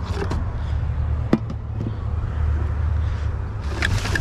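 A vehicle engine idling with a steady low hum, with one sharp metallic knock about a second in and a few clattering knocks near the end as junk is handled.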